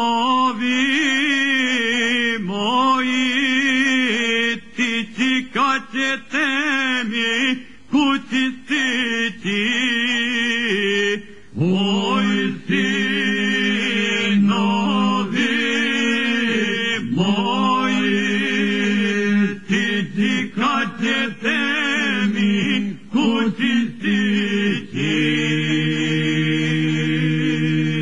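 Unaccompanied men's voices singing a Krajina-style Serbian folk song, with long held notes and a wavering, shaking ornament on the sustained tones. At times several voices sound together on different pitches, ending on a long held chord.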